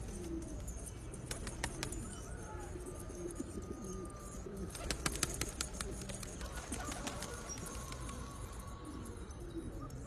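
Domestic pigeons cooing in low, repeated calls, with a short flurry of wing flaps about five seconds in.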